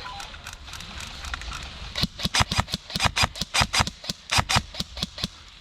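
Airsoft gun firing a rapid string of shots, about six a second, starting about two seconds in and stopping shortly before the end.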